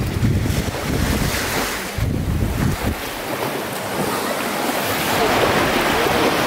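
Wind buffeting the microphone over small Baltic Sea waves washing onto a sandy beach. The gusts drop off about three seconds in, leaving the steady hiss of the surf.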